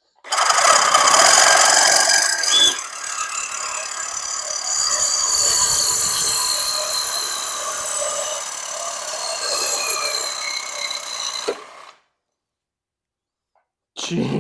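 Power saw fitted with a Diablo Steel Demon metal-cutting blade cutting through steel. The harsh cutting sound runs for about eleven seconds, its pitch sagging slowly in the middle, then stops abruptly.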